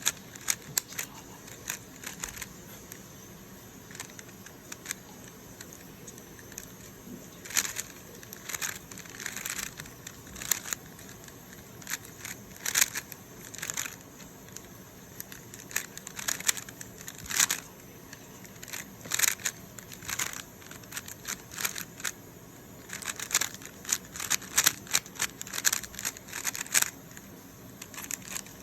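3x3 Rubik's Cube being solved by hand: its plastic layers clicking and rattling as they are turned, in irregular flurries of quick turns with brief pauses between them.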